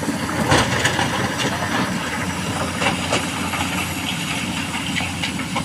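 Heavy diesel engine running steadily, with irregular clanks and rattles of small stones and metal as an excavator loads stones into a dump truck.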